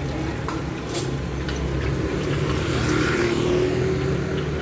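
Street traffic: a motor vehicle's engine passing by over a steady traffic rumble, growing louder about three seconds in.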